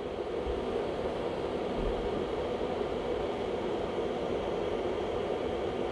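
Steady, even background noise, a low whooshing hum with no breaks or clicks.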